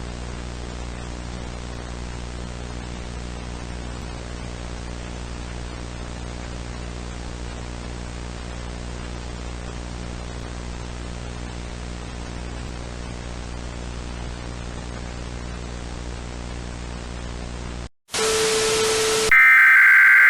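Steady static hiss over a low electrical hum, cutting out about eighteen seconds in. A short loud burst of static with a low tone follows, and near the end loud, shrill emergency alert header tones begin.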